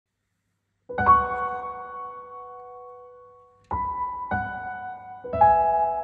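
Soft solo piano music. After about a second of silence, a few gentle chords are struck, each left to ring and fade.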